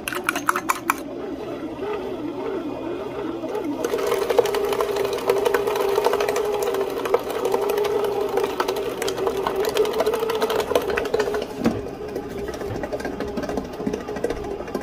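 A fork beating eggs in a ceramic bowl gives quick clinks for about the first second. From about four seconds in, a bread machine's kneading motor hums steadily as it mixes the dough.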